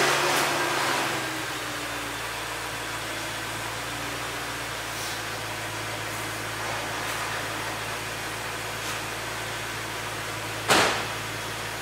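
A 2003 Lexus LS430's V8 idling steadily through an aftermarket TOM's full exhaust, with one short, sharp burst of noise near the end.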